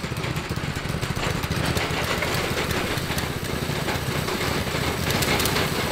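Tillotson 212 single-cylinder four-stroke engines on a three-engine mini bike, running steadily.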